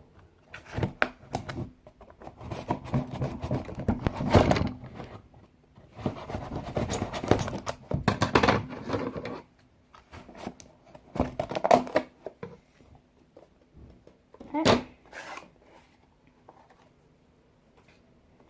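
Packaging being handled and opened: irregular bursts of rustling and crinkling with sharp clicks and knocks, separated by short pauses, over a faint steady hum.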